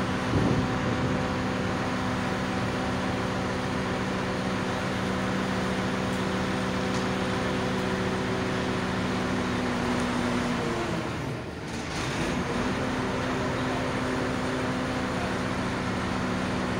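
A heavy engine running steadily at idle, a constant hum with a rumble under it; about eleven seconds in it briefly drops away and then picks up again.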